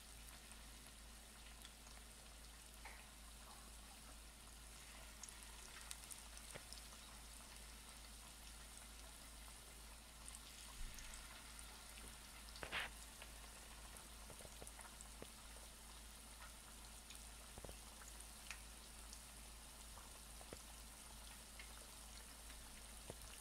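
Chicken pieces coated in flour and cornstarch shallow-frying in hot oil in a pan: a faint, steady sizzle with scattered small crackles, and one louder crackle about halfway through.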